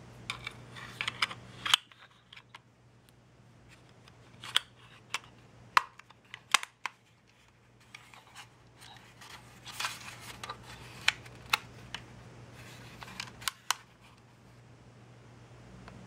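Sharp plastic clicks and handling rattles from a small toy-drone remote controller, as its plastic battery cover is fitted and snapped over the battery compartment and the controller is turned in the hands. The clicks come in several short clusters with gaps between them.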